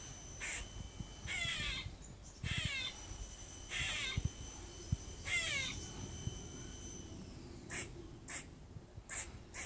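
Squirrel giving a harsh, raspy, crow-like call: four drawn-out rasps about a second and a half apart, with short sharp barks before and after them.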